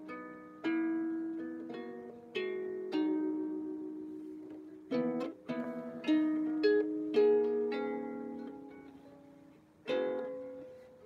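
Out-of-tune harp played slowly and freely: single plucked notes and chords, each left to ring and fade, with a quick run of notes about five seconds in.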